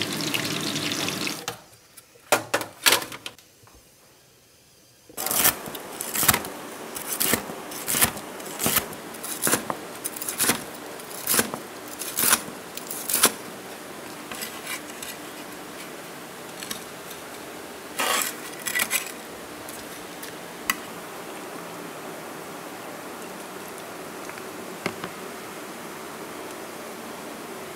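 Hot frying oil hissing briefly, then a knife chopping crisp deep-fried pork on a wooden cutting board: a run of about a dozen sharp knocks a little under a second apart, thinning to a few scattered knocks over a steady low hiss.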